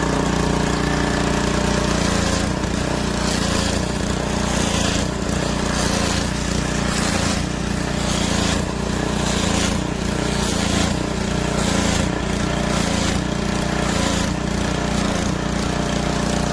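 Small gasoline engine of a 2300 PSI pressure washer running steadily, with spray noise that surges irregularly about once a second: the water pressure is fluctuating.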